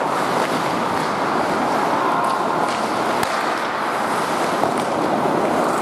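Ice hockey play on an indoor rink: a steady rush of skate blades on the ice, echoing in the hall, with one sharp knock about three seconds in.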